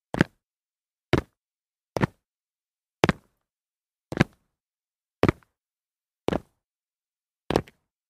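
Feet landing on concrete after jumps: eight separate short, sharp landings about a second apart, several with two hits close together, with silence between.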